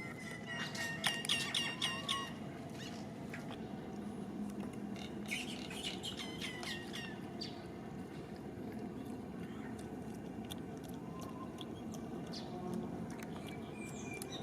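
Two bouts of rapid, high-pitched chirping calls, one about a second in and another around five to seven seconds in, over a steady background hiss.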